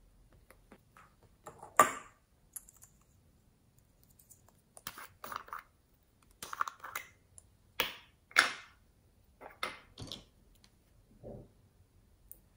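Small plastic containers handled and their snap-on lids pulled off: a series of sharp plastic clicks and short knocks in irregular clusters, the loudest about two seconds in.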